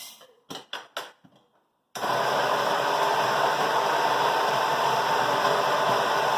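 A few light clicks, then an electric coffee grinder starts about two seconds in and runs steadily, grinding espresso beans.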